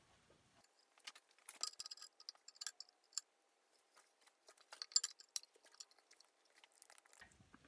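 Light metallic clicks and clinks of an adjustable wrench on a small brass drip oiler as it is turned into the chain-guard housing of a milling machine's table feed. The clicks come in two scattered clusters, the second about five seconds in.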